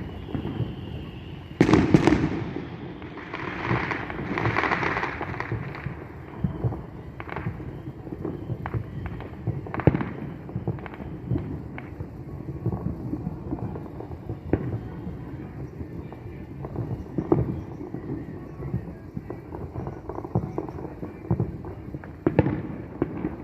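Distant fireworks going off in a steady stream of booms and pops, with a loud cluster of bangs about two seconds in followed by a few seconds of crackle, and another loud bang near the end.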